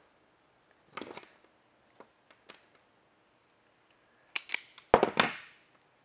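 Hand crimping tool working on a wire and terminal: a few light clicks, then a quick run of sharp snips and snaps about four to five seconds in.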